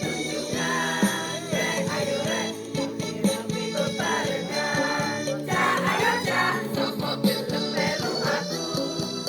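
A choir singing with musical accompaniment, the voices' pitch shifting from phrase to phrase over steadier held notes.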